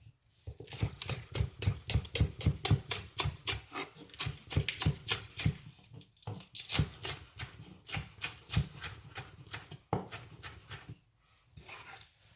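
Rapid knife chopping of spring onion on a cutting board, about five even strokes a second, with brief pauses about six and ten seconds in.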